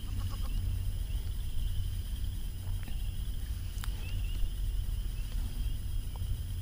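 Wind rumbling on the microphone over open water, with a steady high-pitched chorus from the surroundings and a couple of faint clicks from the fishing reel about three and four seconds in.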